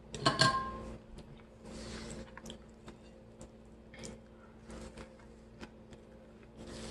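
Close-miked chewing and wet mouth sounds of someone eating fish and chips. A louder bite comes just after the start, followed by soft squishy chews and small clicks.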